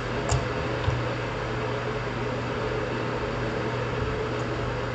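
Steady background hum and hiss of room noise picked up by a desk microphone, with a single keyboard click about a third of a second in.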